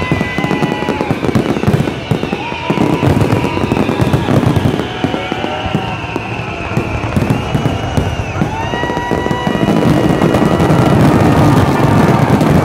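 Fireworks show: rapid, overlapping bangs and crackling, which grow louder and denser from about ten seconds in as the finale fills the sky with crackling glitter.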